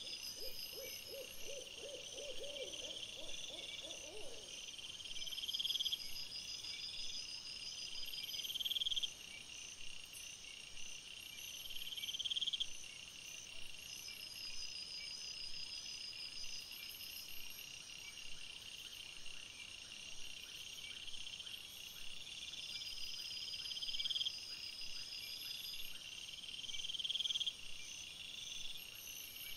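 Insects chirping at night in repeating high trills, with the louder trills swelling every few seconds. During the first few seconds a low, fast-pulsed animal call also sounds, ending about four seconds in.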